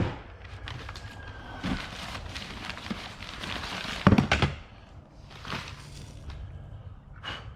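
Handling noise from a plastic clock radio being picked up and turned over: several separate knocks and thunks with rustling between them, the loudest cluster a little past the middle.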